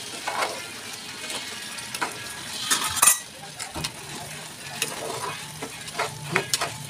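Steel spatula stirring and scraping chicken masala curry in an aluminium pot, with sharp clinks against the pot, over a low sizzle of the curry cooking on the gas flame.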